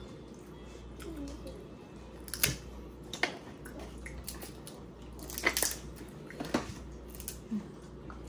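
Seafood boil being eaten: wet squishing and handling of sauce-coated crab legs and lobster, with a handful of sharp cracks and clicks of shell being broken, and chewing.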